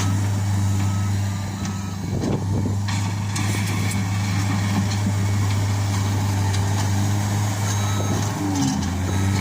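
Case SR130 skid steer loader's diesel engine running steadily under work, with its backup alarm beeping in the first second and again near the end as it reverses.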